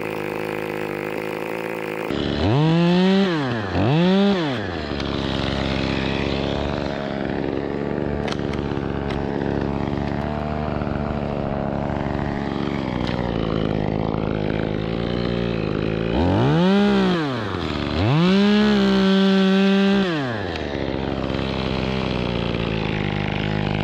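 Echo CS-2511TES top-handle chainsaw's small two-stroke engine running at idle and revved up in short blips: twice in quick succession about three seconds in, and twice again later, the last held at full throttle for about two seconds before dropping back to idle.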